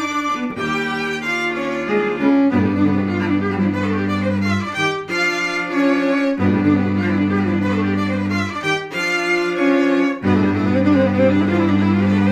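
Background music: bowed strings, a violin line over long held low notes, changing chord every second or two.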